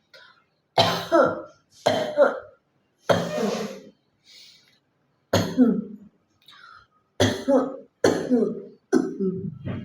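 A woman coughing repeatedly: about nine sharp coughs, several in quick pairs, with one longer, rasping cough about three seconds in.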